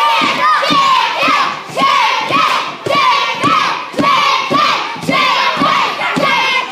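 Live wrestling crowd shouting and chanting in a steady rhythm, with many high voices and short low thuds about every half second.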